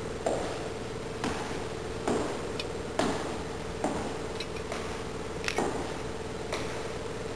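Footsteps going down stairwell steps, about one step a second, with a steady hum underneath.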